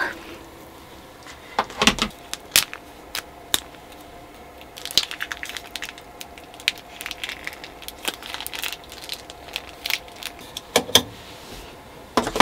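Small objects being handled: a run of sharp clicks, knocks and light rattles, busier about five seconds in and again near nine seconds, over a faint steady hum.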